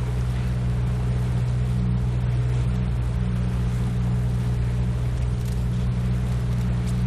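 Outboard motor of a Zodiac inflatable boat running steadily, a constant low hum.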